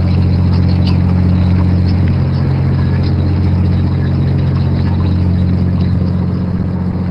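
Steady low drone of a squid-jigging vessel's engines and machinery, with scattered faint ticks above it.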